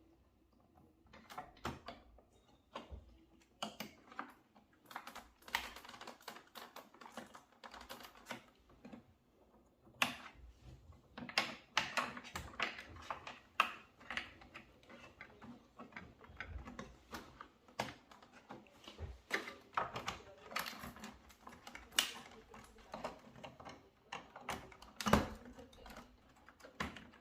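Irregular run of light clicks, taps and knocks, in clusters of several a second at times, with a sharper knock near the end: small tools and parts being handled by hand.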